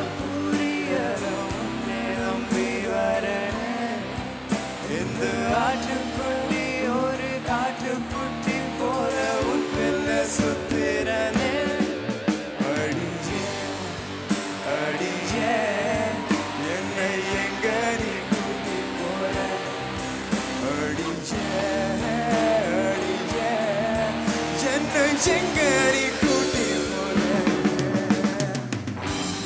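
Male solo voice singing a melodic line into a microphone over a live band with drum kit and electric guitar, amplified through the hall's sound system.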